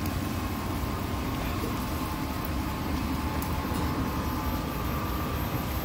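Steady rush and low rumble of storm wind buffeting the phone's microphone.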